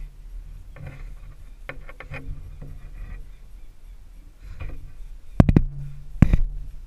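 Knocks and bumps of a climber moving against an aspen trunk: a few light knocks about two seconds in, then a quick run of sharp, loud knocks near the end.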